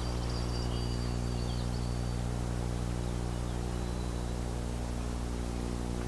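Steady low electrical hum, a stack of even buzzing tones that is the loudest thing throughout. Over it, faint high whistled songbird notes in the first couple of seconds, with a trace again near the middle.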